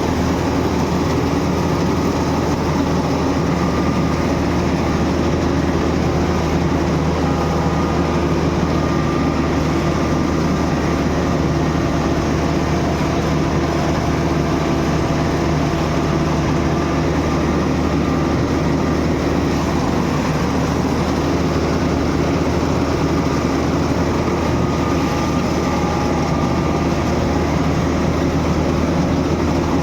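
Gam combine harvester's engine and machinery running steadily as it cuts paddy, a loud, even mechanical drone.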